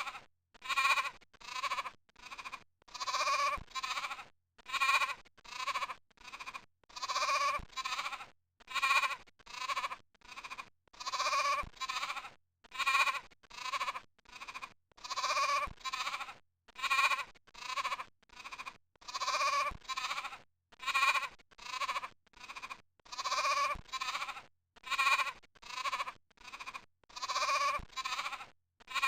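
Goat bleating over and over: short pitched bleats about one to two seconds apart, a brief recording looped about every four seconds.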